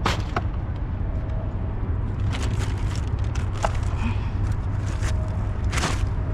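A steady low rumble with several sharp clicks and scrapes, the loudest about six seconds in.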